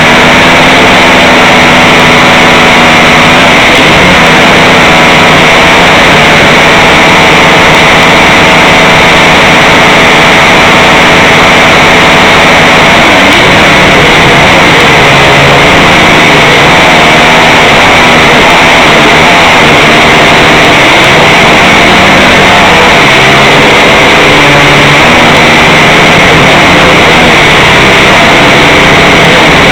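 Camera drone's electric motors and propellers whining loudly and steadily, heard from the drone's own camera. The pitch holds steady at first, then rises and falls repeatedly from about halfway through as the throttle changes.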